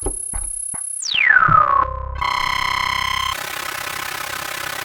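Synthesized sci-fi spaceship-interior sound effect: a steady high whine with a few clicks, then about a second in a pitch that sweeps quickly downward and settles. From about two seconds in there is a buzzing electronic hum over a low rumble, and it turns into a steady hiss near the middle.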